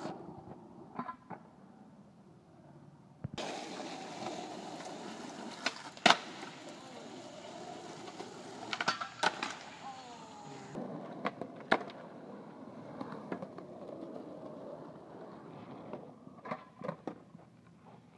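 Skateboard wheels rolling over rough, cracked concrete, with several sharp clacks of the board striking the ground; the loudest comes about six seconds in.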